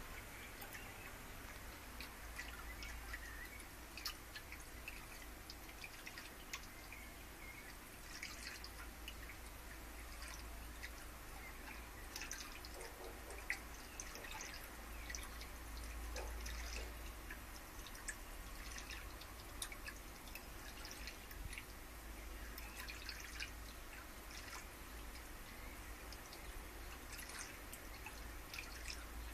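Faint water dripping, with scattered small drips and ticks over a steady low hum.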